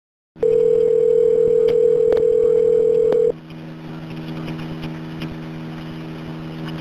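Telephone line as a call is placed: a steady dial tone with a few faint clicks, cutting off about three seconds in, followed by the low hum and hiss of the open line while the call connects.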